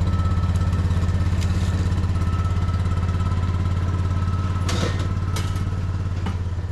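Utility vehicle's engine running with a steady low pulse as it pulls away down a dirt trail, easing off slightly near the end. A couple of sharp clattering knocks come about five seconds in.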